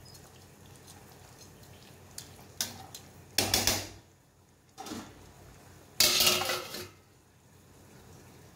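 Steel spoon clinking and scraping against a stainless steel kadai of chicken gravy, then a louder ringing metal clatter about six seconds in as the steel lid is set on the pan.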